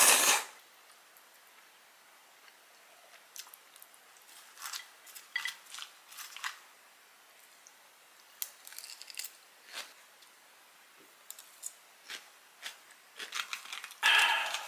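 A metal fork clicks and scrapes on a ceramic plate while crunchy shredded cabbage salad is eaten, in scattered short clicks and crunches. It opens with a brief loud burst of noise, and near the end a plastic drink bottle's cap is twisted open with a short rush of noise.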